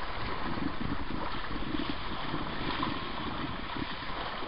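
Steady wind and water noise from a small sailboat under way, with wind buffeting the microphone.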